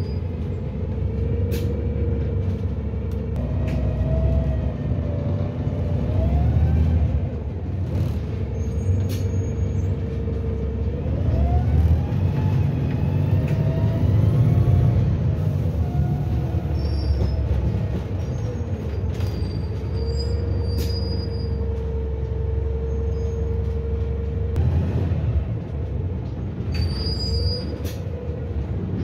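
Inside a moving Volvo B5TL double-decker bus: the diesel engine and drivetrain run with a whine that rises and falls in pitch, holding steady for a few seconds past the middle. Occasional clicks and short hisses of air come through the cabin.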